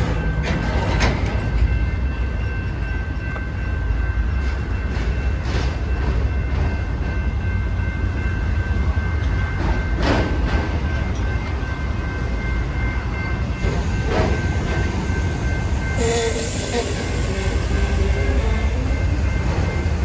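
Intermodal freight train of trailers on flatcars rolling past, a steady low rumble with scattered wheel clicks and a few steady high tones over it. About three-quarters of the way through, a brighter hiss and a falling tone join in.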